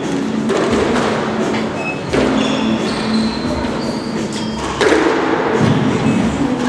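Squash ball being hit back and forth: a few sharp racquet strikes and thuds of the ball off the court walls, spaced a second or more apart.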